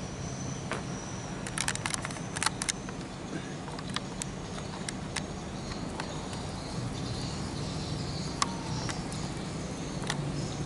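Sparse sharp crackles and pops from a wok of soy-braised fish simmering over a coconut-shell charcoal fire, with a quick cluster of them about two seconds in, over a steady low hum.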